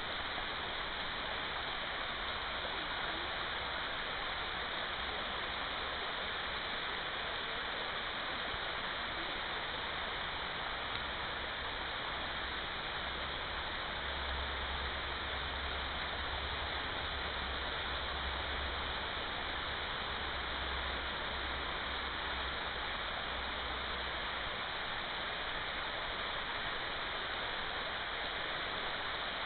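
Steady rush of flowing water from a rocky forest stream. A low rumble comes and goes in the middle.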